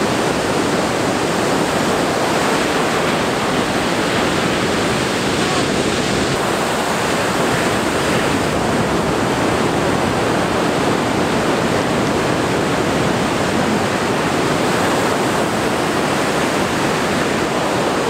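Ocean surf breaking and washing ashore, a steady, even rush of noise.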